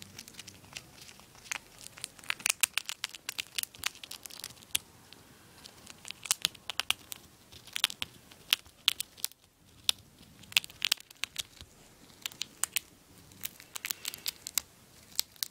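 A hamster gnawing a monkey nut, the peanut shell cracking and crackling in quick, irregular clusters of sharp clicks, with a brief pause partway through.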